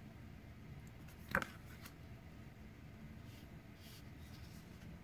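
Paper pages of a poster booklet being turned by hand: one short, sharp paper snap about a second and a half in, then a few faint rustles.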